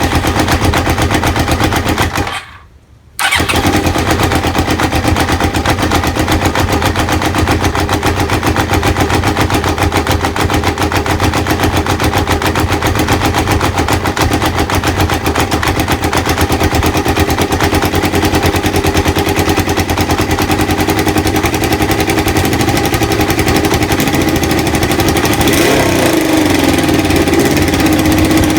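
Kawasaki ZL600 Eliminator's four-cylinder engine running steadily while warming up, with its carburettor air/fuel screws at the factory setting of 2.5 turns. The sound cuts out sharply for under a second about two and a half seconds in, then carries on; near the end the revs dip and pick up again slightly.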